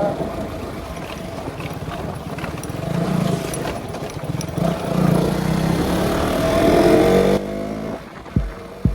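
Motorcycle engine running on the move with wind and road noise, its pitch climbing as it speeds up, then cut off abruptly. A slow, deep thudding beat starts just before the end.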